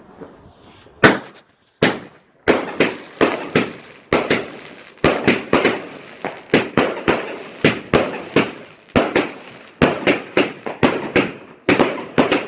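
Profishow 100-shot 25 mm firework cake firing. Sharp bangs begin about a second in and then come in quick succession, about two to three a second, each followed by a brief crackling tail.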